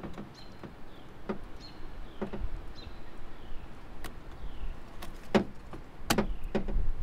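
Plastic clicks and knocks as a taillight wiring connector is pried and worked loose on a Tesla Model 3 trunk-lid trim panel with a small pen. There are about seven sharp clicks, and the loudest two come late.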